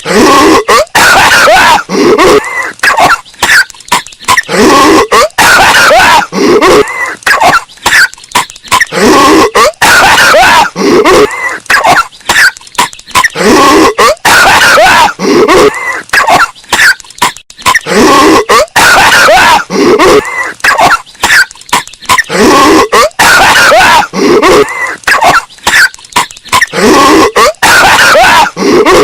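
Patrick Star's cartoon coughing, bass-boosted until it distorts: harsh, clipped coughs come one after another with short breaks, each sliding down in pitch.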